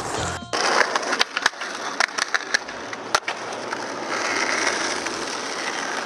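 Skateboard wheels rolling over asphalt, with a run of sharp clacks in the first three seconds.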